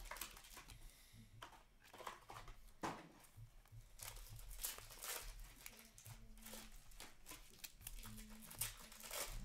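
Faint rustling, crinkling and light tearing of hockey trading cards and pack wrappers being handled and shuffled by hand, with cards sliding against one another in a series of short scattered crackles.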